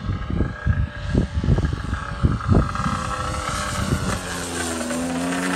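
Wind buffeting the microphone, then a radio-controlled Corvus Racer model jet passing low. It carries a JetCat 80 turbine and a gas piston engine. From about three seconds in, a turbine hiss and whine and the engine's steady drone build up and hold loud.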